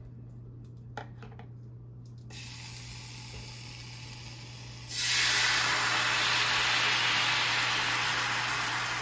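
Sauce poured into a hot, reheated skillet, sizzling. A faint hiss starts about two seconds in, then a loud, steady sizzle sets in about five seconds in and slowly eases.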